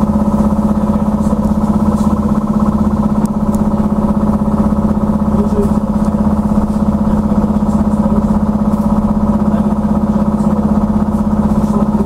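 Inside a moving UTTZ Gorozhanin trolleybus: a steady electric hum held at one unchanging pitch, over a low road rumble. A few faint light rattles are heard.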